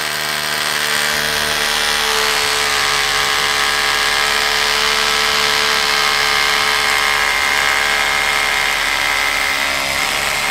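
INGCO 20V cordless rotary hammer drilling a hole into a wall with a 10 mm SDS-plus bit, running steadily under load.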